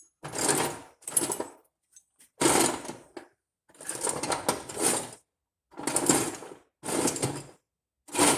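Metal hand tools clattering and rattling in a toolbox as small wrenches are dug out, in a run of about seven short bursts of clinking.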